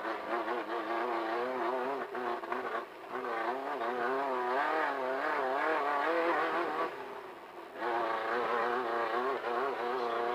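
Desert race car's engine heard from inside the car, running at part throttle with its pitch wobbling up and down. The engine eases off briefly about seven seconds in, then picks back up.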